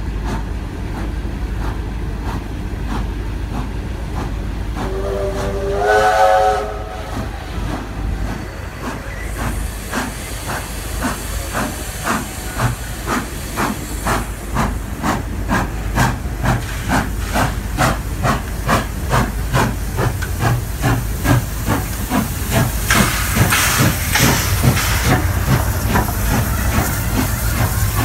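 Steam locomotive sounding its whistle once, for about two seconds, about five seconds in. It then works steam as it approaches, with even exhaust beats at about two a second over steam hiss, which grows loudest near the end.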